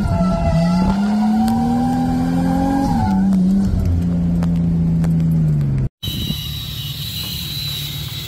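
Drift car's engine held high in the revs while sliding, with tyre skid noise under it, heard from inside the car. The engine pitch climbs for a couple of seconds, then drops in steps, and the sound cuts off about six seconds in. A steady, quieter background with a thin high whine follows.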